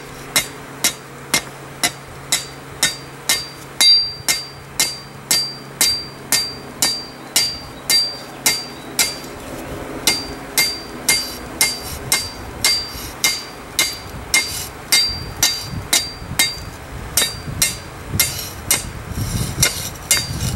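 Hand hammer striking the edge of a steel plate on a Peter Wright anvil in a steady rhythm of about two blows a second, each with a short high metallic ring. The blows are forging a hammered bevel around the outside edge of the plate.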